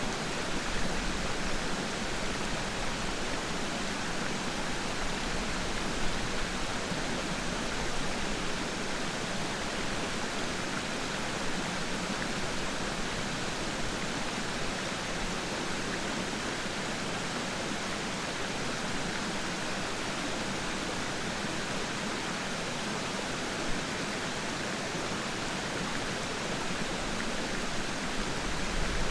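Steady rush of running water from a waterfall and its stream: an even, unbroken hiss.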